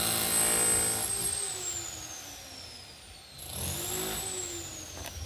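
Civil-defence warning siren sounding the up-and-down public warning signal: one steady tone that falls in pitch and fades, then swells back up about three and a half seconds in and begins to fall again.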